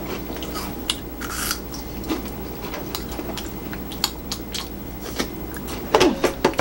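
Crunchy snack chips being bitten and chewed: a scatter of short, sharp crunches.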